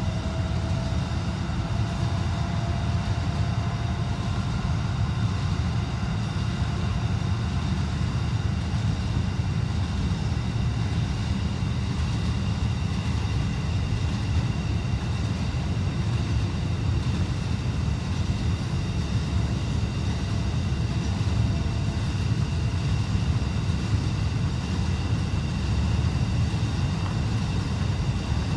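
Freight train in a rail yard: a steady low rumble with faint steady high tones above it.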